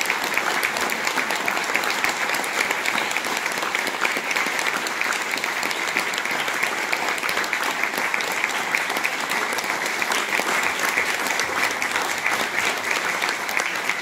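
Audience applauding steadily, many hands clapping at once without a break.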